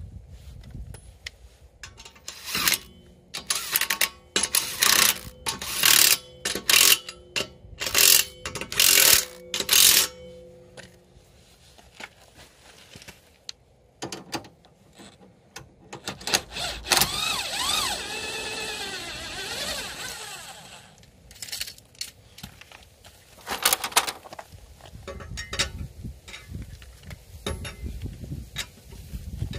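Cordless impact tool hammering wheel lug nuts on in a rapid string of short bursts. Then a power tool runs steadily for about four seconds, winding the scissor jack down. Near the end come a couple more short bursts and light metal clicks of a cross wrench on the lug nuts.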